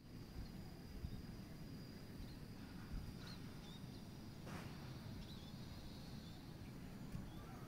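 Faint outdoor background: a steady low rumble with a few faint, short bird chirps scattered through it.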